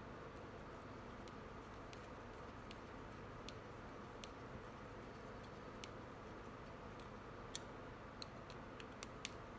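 Faint, scattered small metallic clicks and ticks from a hex driver and small screws as they are done up in a Serpent 989 two-speed gear, over a steady low room hum. A few sharper clicks come close together near the end.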